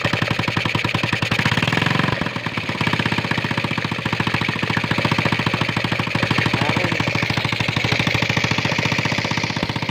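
Old motorcycle engine running with a rapid, even firing beat, the note dipping briefly about two seconds in.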